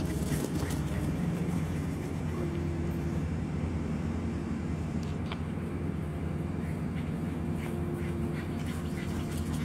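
Steady low motor drone, even throughout, with a faint hum that comes and goes and a few light clicks.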